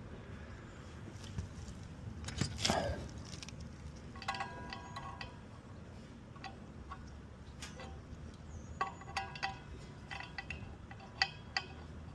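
Metal tools and parts clinking against each other, with short ringing tones after each clink, in two clusters, while a blower wheel is fitted and its set screw tightened with an Allen key on a new HVAC blower motor. A brief scrape a couple of seconds in is the loudest sound.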